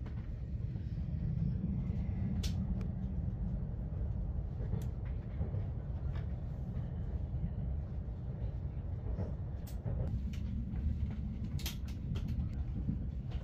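Steady low rumble of a passenger train in motion, heard from inside the carriage, with a few sharp clicks and knocks.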